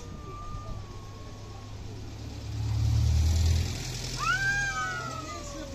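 Tabby cats yowling at each other in a standoff. A long wavering low yowl fades out about a third of the way through. Near the end comes a louder yowl that rises sharply and then slides down. A passing vehicle rumbles in between.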